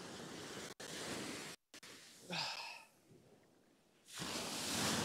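Rushing noise of wind and surf, cutting out abruptly a couple of times, with a short breathy sigh about two and a half seconds in and a swell of rushing noise near the end.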